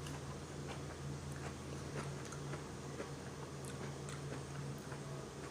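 A person chewing food close to the microphone, with scattered small wet mouth clicks, over a steady low hum.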